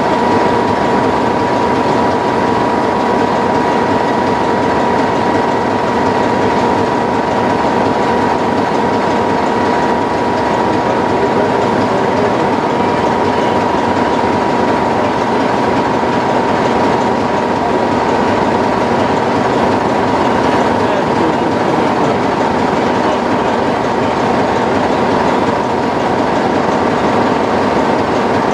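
Class 33 diesel locomotive's Sulzer eight-cylinder engine idling steadily while the locomotive stands, a dense engine clatter with a steady high whine running through it.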